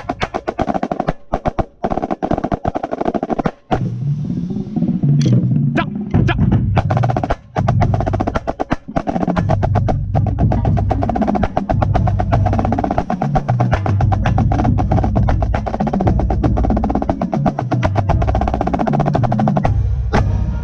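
Marching snare drum played close to the microphone with dense, rapid rudimental strokes and rolls, over a marching band's brass and low drums. The band pauses briefly twice in the first eight seconds.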